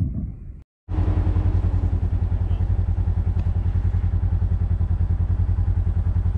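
A vehicle engine idling steadily with an even, low throb. It cuts in about a second in, after a brief silence.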